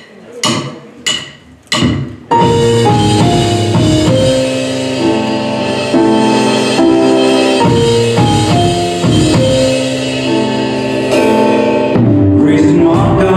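A drummer's count-in of three sharp taps about half a second apart, then a gospel band starts the song's intro: keyboard chords and melody over drum kit and acoustic guitar.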